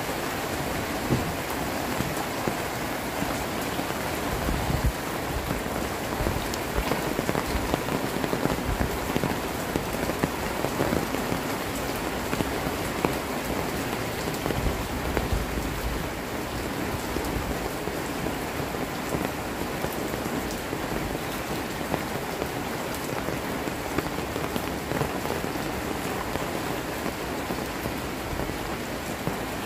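Heavy rain falling steadily on corrugated metal roofs and a wet dirt alley, with many sharp individual drop hits over the constant hiss.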